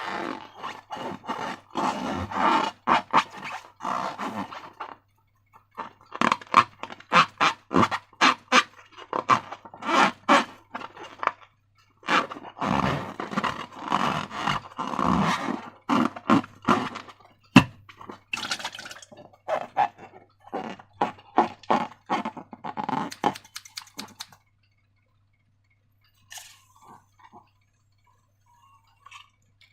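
Slime being squished and worked by hand, giving dense runs of sticky crackling and clicking in bursts several seconds long. The crackling stops about two-thirds of the way through, leaving only a few faint sounds.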